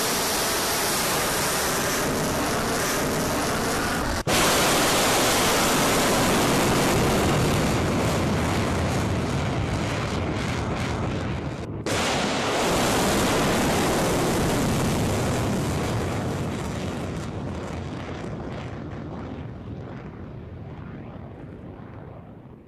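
Short-range ballistic missile's rocket motor at launch from a rail car and in its climb: a loud, steady rushing noise that breaks off twice for an instant and fades gradually over the last several seconds as the missile flies away.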